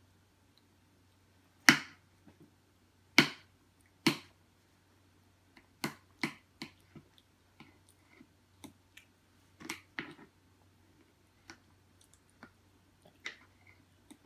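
Sharp taps and knocks of a plastic fork and small hands against a plastic bowl and high-chair tray: three loud knocks in the first four seconds, then a run of lighter clicks and taps.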